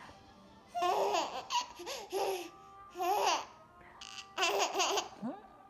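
A baby laughing hard in several bouts with short pauses between, the laughs high-pitched and bending up and down in pitch.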